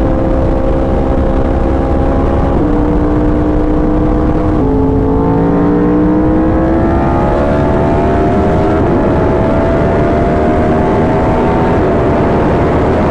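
Yamaha R1 motorcycle engine with an SC Project exhaust, heard while riding: the engine note drops sharply twice in the first five seconds as it shifts up, then climbs steadily as the bike pulls through the next gear, with further small shifts later. Wind rush on the microphone runs underneath.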